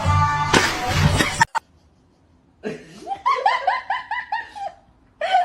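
A loud rushing noise cuts off abruptly about a second and a half in. After a short pause comes a run of about ten quick, high-pitched laughs.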